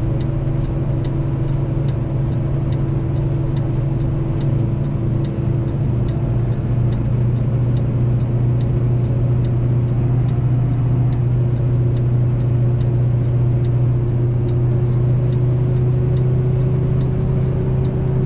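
Semi truck's diesel engine holding a steady drone in seventh gear on a downgrade with the engine brake applied, its pitch creeping up slightly. A faint regular ticking runs along at about two ticks a second.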